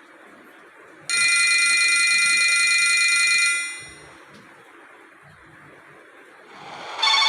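A Mitsubishi D505i flip phone playing a built-in electronic alert tone through its small speaker. A bright, steady chord starts about a second in, holds for about two and a half seconds and fades out. Near the end a second, pulsing electronic tone starts.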